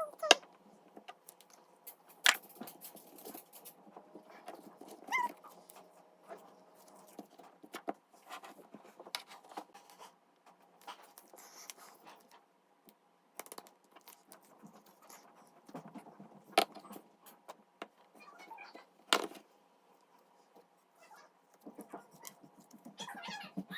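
A dog, with sporadic clicks and knocks and one short rising whine about five seconds in.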